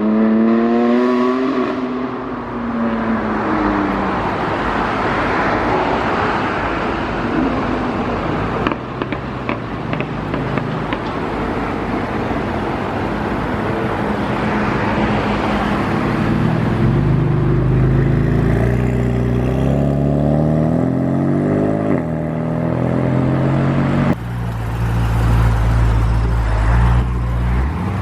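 Performance car engines and exhausts as cars pull away: an engine note falls at the start, then a rush of exhaust and road noise with a few sharp pops partway through. Later come lower, steadier engine notes with a deep rumble, and an engine revs up, rising in pitch, near the end.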